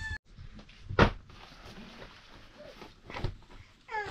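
Two knocks: a sharp one about a second in and a softer one about three seconds in.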